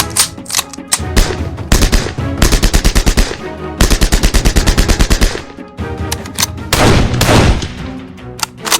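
WWII German small arms firing: a few single shots, then two long fully automatic bursts of roughly ten shots a second, a longer heavier blast about seven seconds in, and a few more single shots near the end, with music under the gunfire.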